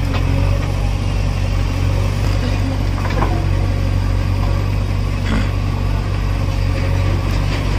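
JCB 3DX backhoe loader's diesel engine running steadily as its backhoe digs soil, with a couple of faint scrapes from the bucket.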